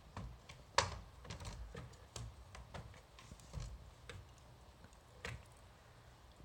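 A large wooden stick knocking and scraping against a window frame in irregular taps and clicks as a dog tugs at it, with the loudest knock about a second in.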